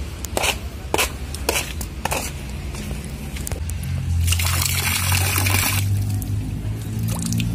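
Water balloon bursting in the hand, its water spraying out and splashing onto a pond for about a second and a half, some four seconds in, with a few light clicks before it. Background music runs throughout.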